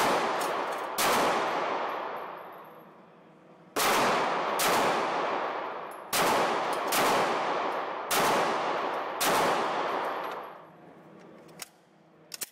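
Glock 17 9mm pistol firing eight shots in four pairs, each shot ringing out with a long echo off the walls of the indoor range. Two short clicks follow near the end.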